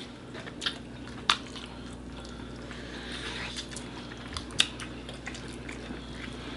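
People biting into and chewing sauce-coated chicken wings, with a few sharp mouth clicks and smacks. The loudest come about a second in and again a little past the middle.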